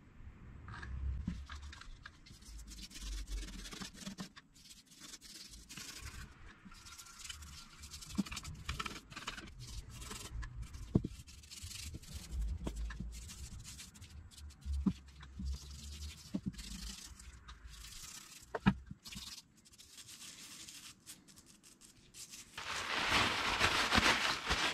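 Irregular rubbing and scraping on plywood, with a couple of sharp clicks, then a loud hiss of about two seconds near the end.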